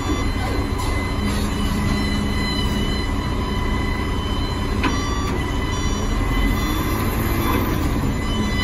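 SDLG wheel loader running under load, its diesel engine and hydraulics giving a steady noise with a high steady whine as the bucket tips over a dump truck. A single knock about five seconds in.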